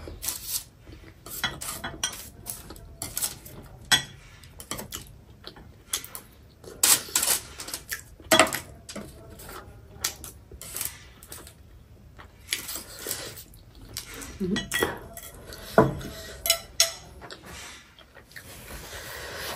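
Metal chopsticks clicking and scraping against a glass bowl and a foil tray, picking up the last scraps of noodles, with close-up chewing between the strokes.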